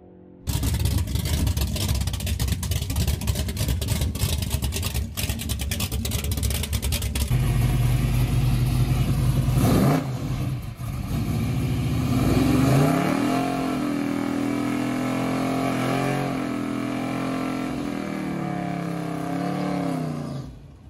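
A V8 drag car running at full throttle, loud and rough, for about the first seven seconds. Then a white Buick GSX's V8 revs up near the middle and holds high, steady revs through a tyre-smoking burnout, its pitch wavering as the rear tyres spin.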